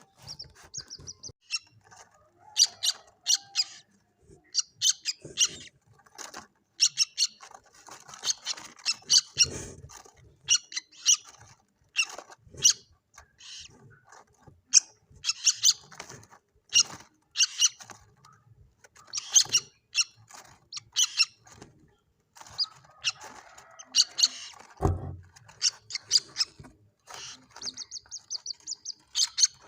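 Common moorhen chicks calling: many short, high peeps, repeated in quick clusters throughout. A brief low thump comes near the end.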